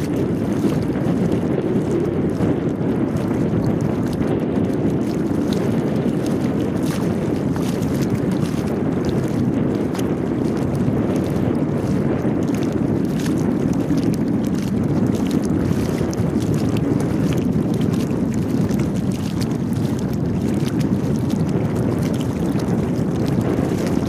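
Steady rushing wind noise on the microphone over open river water, with faint scattered splashing ticks.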